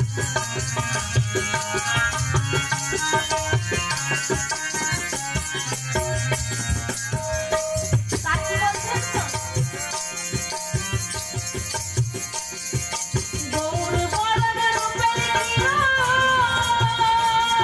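Bengali baul folk music with a steady hand-drum rhythm. A melody that bends in pitch comes in about halfway and grows stronger near the end.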